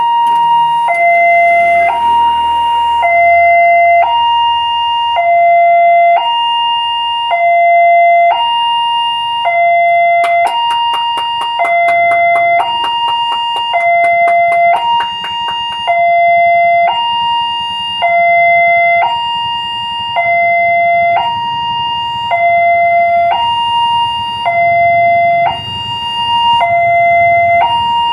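Railway level-crossing warning alarm sounding a loud two-tone signal, alternating high and low about once a second, as it warns that a train is coming. Between about 10 and 15 seconds in, a quick series of clacks runs underneath it.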